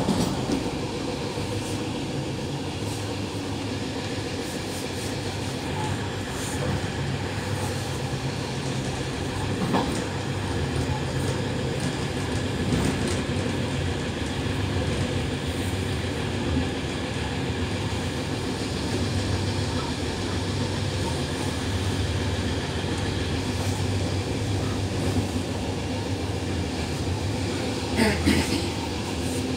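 Train running along the track, heard from inside near the front window: steady running noise with a low hum, a single knock from the wheels now and then, and a short burst of louder clattering near the end.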